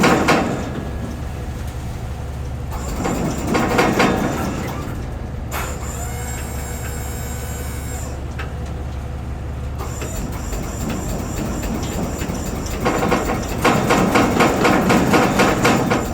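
Kubota skid steer's diesel engine running steadily under work, with two stretches of loud rattling and scraping, one about three seconds in and one from about thirteen seconds in. A high whine sounds for about two seconds midway.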